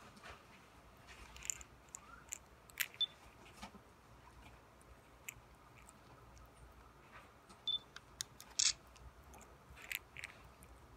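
Chihuahua puppy chewing and gnawing on a fluffy plush toy: faint scattered clicks and ticks of teeth and fabric, with a short rustle near the end.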